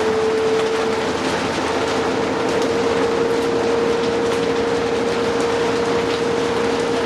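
Cabin noise of a moving 2009 New Flyer D60LFR articulated diesel bus: a steady whine that rises slightly about a second in, over an even hiss of road and rain noise.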